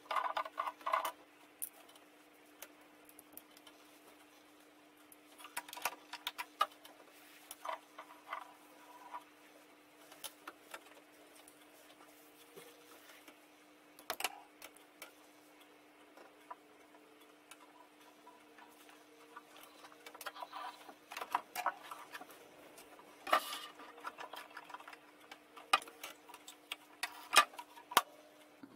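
Scattered small clicks and plastic clatters from hands handling a Janome sewing machine: turning its selector dial and threading it. The sounds come in short clusters with quiet between them, over a faint steady hum.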